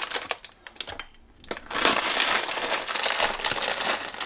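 Plastic bag of popcorn kernels crinkling as it is handled and opened: a brief rustle, a short pause about a second in, then steady crinkling from about two seconds in.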